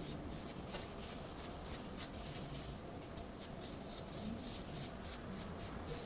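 Paintbrush laying acrylic paint in short, quick dabbing strokes: a faint, repeated brushing.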